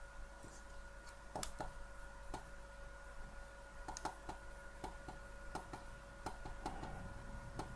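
Push buttons on a TS101 portable soldering iron clicking faintly as its settings menu is stepped through: more than a dozen short, irregular clicks, with a faint steady hum behind.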